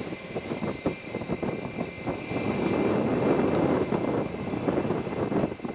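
Airbus A320-family jet airliner's engines during takeoff: a steady rumble with a thin steady whine on top, crackly at first and growing louder about two seconds in.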